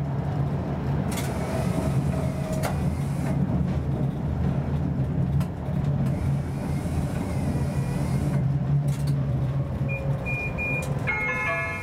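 Tram running on its rails while slowing for a stop, with a steady low electric drone and occasional sharp clicks and knocks from the wheels on the track. Near the end a short, broken high beep sounds, then a chime begins.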